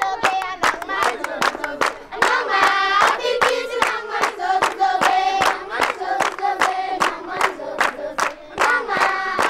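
A group of children singing together in unison, clapping their hands in a steady rhythm of about three claps a second.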